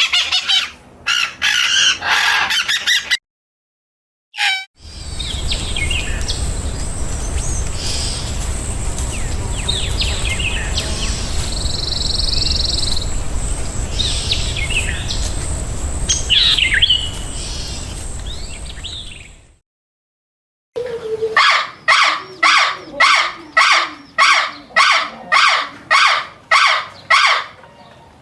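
Birds calling in three separate stretches. First a short burst of busy chirping, then a long stretch of scattered chirps over a steady high-pitched hum and a low rumble, then about a dozen loud, harsh calls repeated evenly at roughly two a second.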